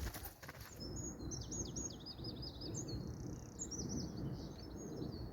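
A songbird singing a rapid run of high, downward-sweeping notes, starting about a second in, over a low steady background rumble.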